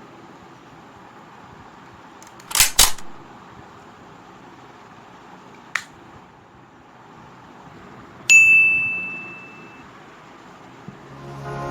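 A quick double click, a single click a few seconds later, then a sharp strike followed by a clear high ding that rings and fades over about a second and a half; the clicks are typical of a cardboard toy pistol's slide and trigger mechanism being worked.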